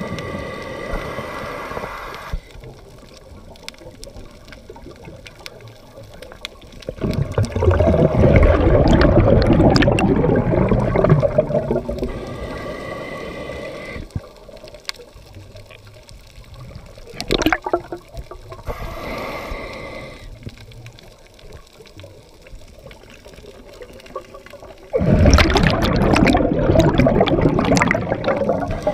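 Underwater bubbling of a scuba diver's exhaled breath: long bursts of bubbles at two points, with quieter water noise in between.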